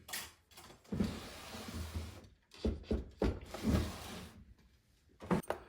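Soft, scratchy rubbing in two stretches of a second or two each, the sound of small metal watch parts being handled and marked on the bench, followed by a few light clicks near the end.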